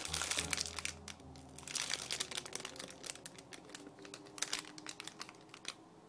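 Plastic crinkling and crackling in quick irregular bursts as it is handled, over soft background music that fades out near the end.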